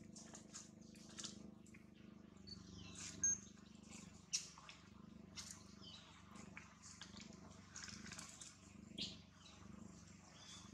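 Macaques handling and eating banana peel: scattered short crackles and clicks, the loudest about three and four seconds in, over a low steady hum.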